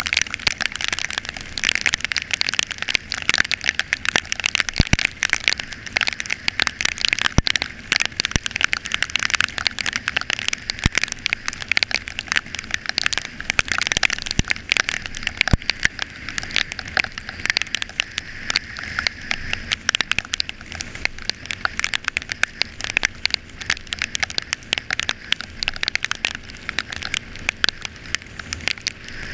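Heavy rain: a dense crackling patter, with scattered sharper clicks of individual drops.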